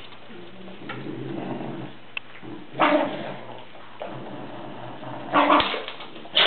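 Two dogs play-fighting: a low growl about a second in, then short loud barks, one about three seconds in and two close together near the end.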